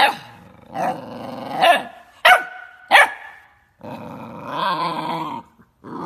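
Puppy barking: about five short, sharp barks in the first three seconds, then a longer growl of about a second and a half, and one more short sound near the end.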